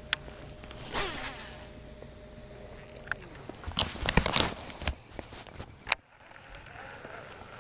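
Handling of a baitcasting rod and reel: scattered clicks and rattles, with a short run of quick zipping, rattling clicks from the reel about four seconds in and one sharp click near six seconds.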